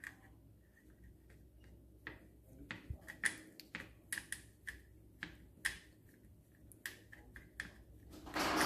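Scattered light clicks and taps of fingers and nails on a ridged plastic board as a ball of dough is pressed and rolled across it to mark ridges into it. Near the end a louder rushing scrape begins.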